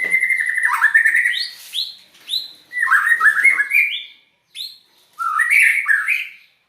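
White-rumped shama singing: quick whistled notes sliding up and down, in three or four phrases with short pauses between them.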